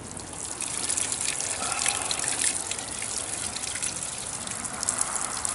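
Water running from a stone drinking-fountain spout, splashing into its stone basin and over hands held under the stream, with many small spatters.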